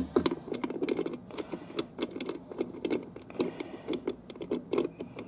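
Metal parts of a 700R4 automatic transmission clicking and rattling against each other as they are turned and worked into place by hand: a quick, uneven run of light clicks, several a second.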